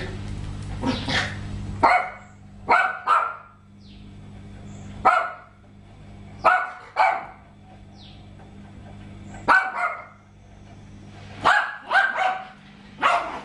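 A dog barking: about a dozen short barks, some single and some in quick pairs or threes, with pauses of one to two seconds between groups. A low steady hum runs underneath, strongest in the first two seconds.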